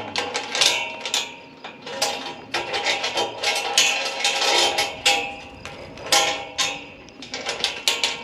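Galvanized steel livestock gate being unlatched by gloved hands: irregular metallic clanks and rattles of the latch and fittings, with brief ringing of the steel.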